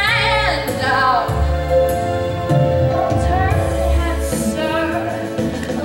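A woman singing a Broadway show tune live over instrumental accompaniment, with long held notes and vibrato above a steady low bass line.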